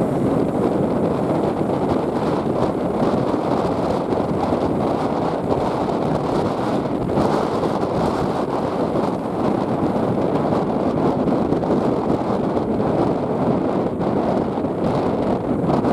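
Strong wind buffeting the microphone: a steady rushing noise that keeps an even level throughout.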